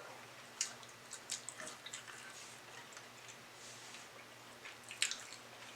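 Faint, wet mouth clicks and smacks from eating and drinking close to the microphone: a few scattered sharp ticks, the strongest about five seconds in.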